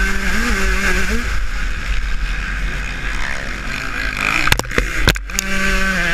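Husqvarna TC125 two-stroke motocross engine revving up and down, heard from the bike. About a second in the engine note drops away under a rushing noise. A few sharp knocks come about four and a half seconds in, then the engine pulls steadily again.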